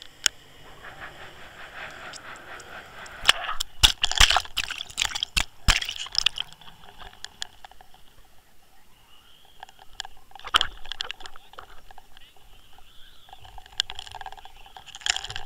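Water rushing and gurgling around the housing of an underwater fishing camera as it is hauled up through the water and out at the surface, with a run of sharp clicks and knocks on the housing between about three and six seconds in and another knock near the middle.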